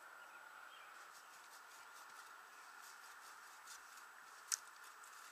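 Near silence: a faint steady hiss, with faint scattered ticks and one sharp click about four and a half seconds in.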